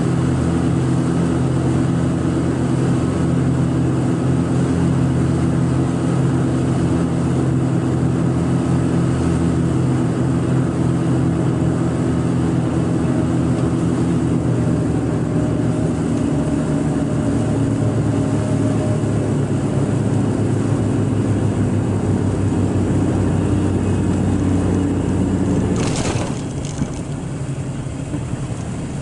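Aero Commander's twin piston engines droning steadily in the cockpit through the final approach and touchdown, their note shifting about halfway through. Near the end there is a single sharp knock, and the drone then drops a little in level.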